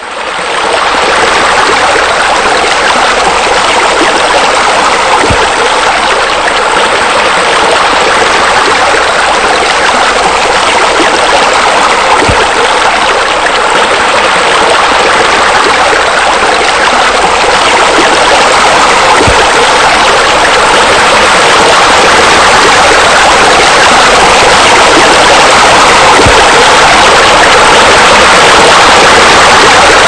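Steady rush of running water, as of a waterfall spilling into a pool, fading in quickly at the start and holding even throughout. A faint low thud comes about every seven seconds.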